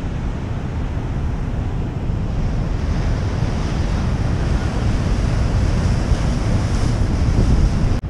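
Wind buffeting the microphone with a heavy low rumble, over ocean surf breaking on the beach.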